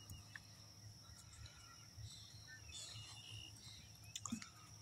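Near silence with faint outdoor ambience: a steady high-pitched insect drone.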